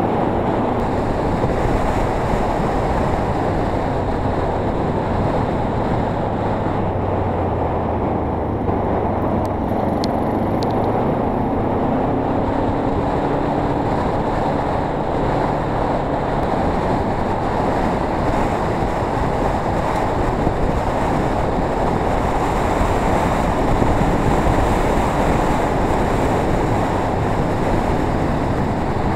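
Kawasaki KLE motorcycle running steadily on a gravel track, its engine partly buried under heavy wind noise on the camera microphone.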